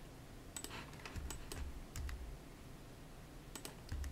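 Computer keyboard keystrokes, short clicks in small clusters: a few about half a second in, a couple just past a second, and a quick run near the end, with a few soft low thuds between.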